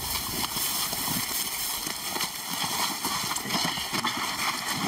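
Footsteps of several people crunching and shuffling through dry grass, with irregular rustling and scuffing as they carry a heavy load on a stretcher.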